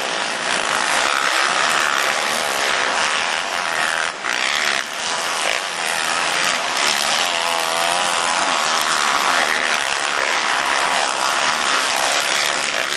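Motocross bike engines revving hard on the track, the pitch rising and falling as the riders work the throttle.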